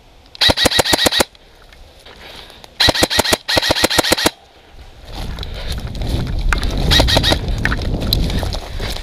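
Airsoft electric rifle firing three full-auto bursts of rapid clicking shots, about ten a second, in the first four seconds. Then, from about five seconds in, a loud low rumble of movement and wind on the camera as the player runs.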